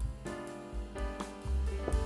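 Instrumental background music with sustained pitched notes over a low bass line.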